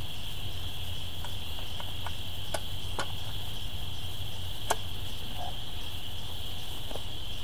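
A steady high-pitched outdoor chorus drones on, with a few light sharp clicks and knocks about two and a half, three and five seconds in.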